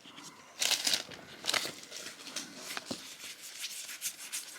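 Foil wrapper of a trading-card booster pack crinkling and tearing open in several short rustling bursts, the loudest about half a second to a second in.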